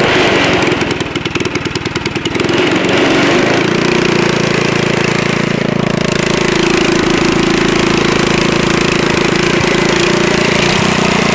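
Harbor Freight Predator 212cc Ghost single-cylinder OHV kart racing engine running just after its first-ever start. It pulses unevenly at low speed for the first two seconds or so, then picks up and runs at a steady, faster speed.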